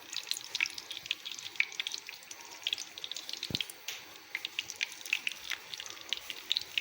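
Ghee heating in a frying pan, crackling with a steady run of small, irregular pops.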